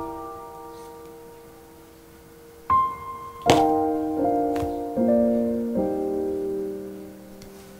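Slow background piano music: held notes fading away, then a single high note about three seconds in, followed by a chord and a few more notes.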